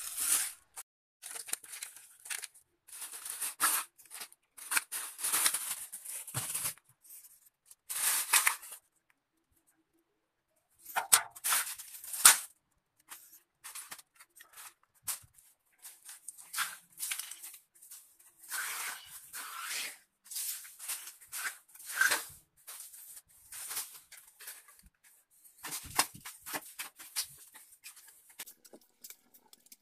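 Debris and plastic scraps being swept and gathered off a tiled floor: irregular swishing, rustling strokes with short pauses, and a longer pause about nine seconds in.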